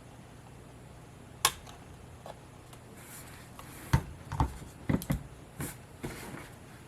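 Sharp clicks and light knocks of a jumper lead being fitted across the contacts of a DJI Phantom 4 drone battery. There is one sharp click about a second and a half in, then a cluster of six or so knocks and taps over the next two seconds.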